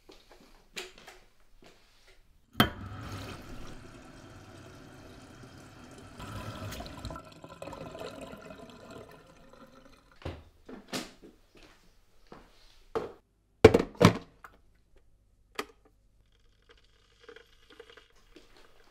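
Kitchen tap running into an electric kettle for about four seconds after a thunk, then a scatter of sharp clicks and knocks of kitchenware, the loudest two close together about two-thirds of the way through.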